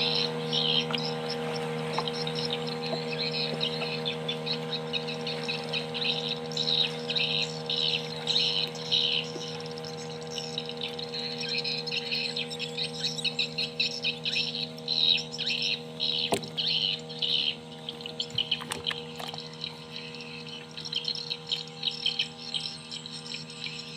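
Birds chirping in rapid, stuttering trills that come in bursts every second or so, over a steady low hum.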